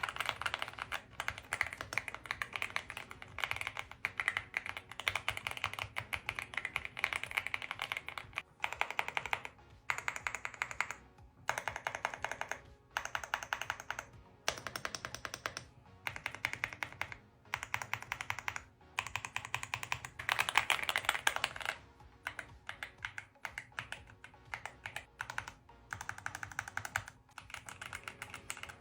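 Fast typing on a full-size mechanical keyboard tuned for a 'creamy' sound, dense key clacks in bursts of a few seconds with short pauses between them. Music plays underneath.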